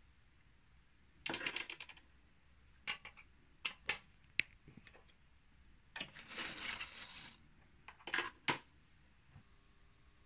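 Irregular sharp metallic clicks and a few short scraping rasps of metal being handled at a mini lathe, with no motor running. There is a brief rattle near the start, scattered single clicks, a longer scrape about six seconds in, and a last cluster of clicks near the end.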